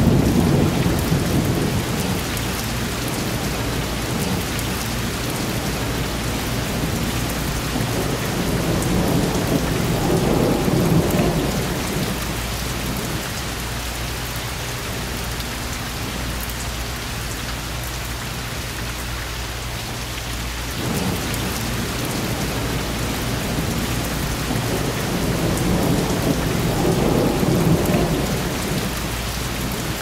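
Thunderstorm: steady rain hissing throughout, with low rolling thunder rumbles that swell up at the start, again about ten seconds in, and once more near the end. The recording is distorted.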